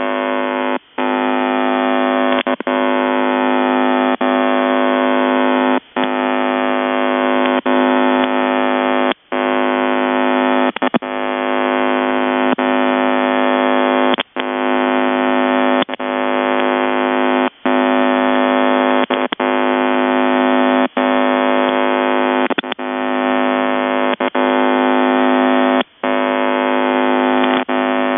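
Demodulated shortwave signal on 8514 kHz from what is taken for a Russian military HF network: a steady harsh buzz made of many evenly spaced tones, cut by brief dropouts every few seconds.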